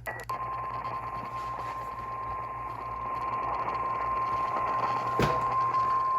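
Emergency Alert System weather-radio attention tone: one steady tone near 1 kHz (the 1050 Hz warning alarm) heard through a radio receiver with static hiss and a low hum. It starts just after a brief squawk of data tones, and there is a sharp click about five seconds in.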